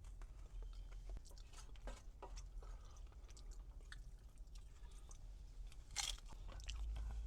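Close-miked chewing and crunching of food, a string of small crackles with a sharper crunch about six seconds in.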